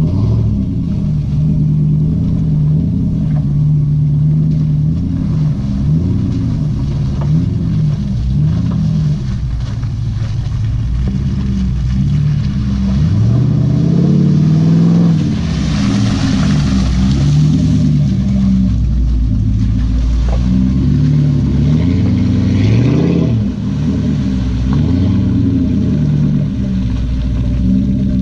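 Jeep Grand Cherokee 4.7 L V8 with a Flowmaster exhaust, revving up and down under load in mud. It climbs sharply about halfway through and again near the end. A spell of hissing noise rises over the engine just after the first climb.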